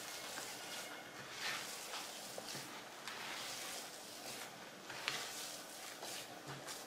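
Tamale masa worked with lard and broth being beaten in a bowl: faint, irregular soft strokes of the dough being worked.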